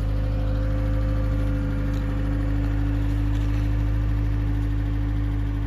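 1972 Datsun 521 pickup's four-cylinder engine idling steadily.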